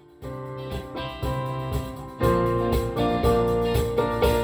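Instrumental background music that comes in just after the start and gets louder about two seconds in.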